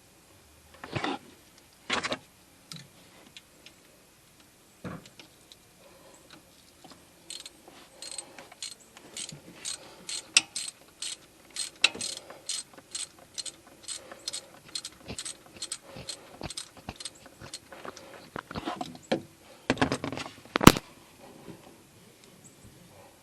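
Socket ratchet wrench clicking in a steady run of about two to three clicks a second as a 12 mm bolt is unscrewed, with a couple of tool knocks near the start and one sharp loud clack near the end.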